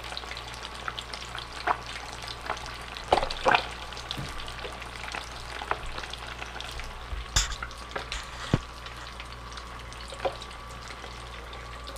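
Battered fish deep-frying in a pot of hot oil: a steady bubbling sizzle with constant crackle and a few louder sharp pops.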